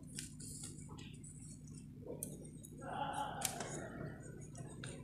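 Handling noise from thin wooden strips and a plastic RC car chassis being fitted together by hand: scattered light clicks and knocks, with a longer scraping rub between about two and four seconds in.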